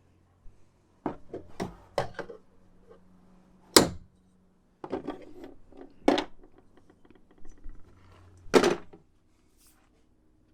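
Hard objects being rummaged through and set down: a series of sharp knocks and clatters at irregular intervals, the loudest about four seconds in and another near the end, as tools and hardware are handled in the search for a bolt.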